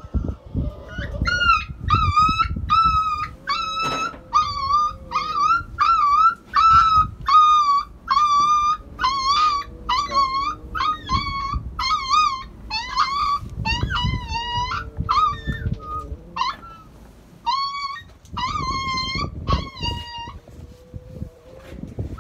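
A puppy crying in a long run of short, high-pitched yelps, roughly two a second, with a short pause about three-quarters of the way through; it is being given an injection. Rustling and handling noise from the blanket sit underneath.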